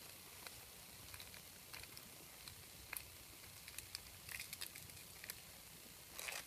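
Faint crinkling and crackling of a fresh banana leaf being rolled into a cone and folded by hand, in scattered small ticks with a denser crackle near the end.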